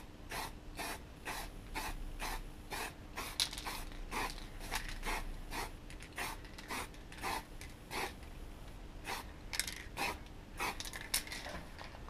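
Aerosol spray can of black paint let off in many short hissing puffs, two or three a second, dabbing paint onto an alloy gear knob.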